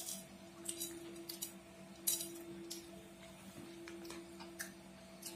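Small hard candy-coated sweets clicking and clinking against a glass plate as a child's fingers pick and stir through them, in scattered irregular taps. A faint steady low hum runs underneath.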